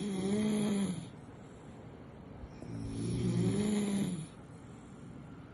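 Sleeping puppy snoring: a pitched, droning snore on each breath, about three seconds apart. One snore fades out about a second in and another comes near the middle.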